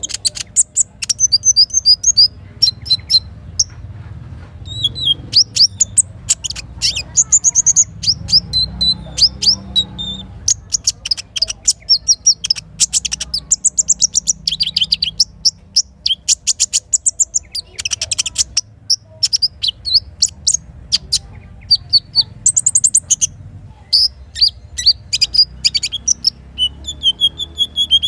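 Songbird singing in rapid, high chirps and trills, notes following one another almost without pause, over a low steady rush of river water.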